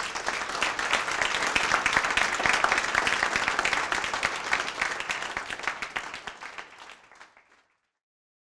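Audience applauding, many quick claps blending together, then tapering off and stopping near the end.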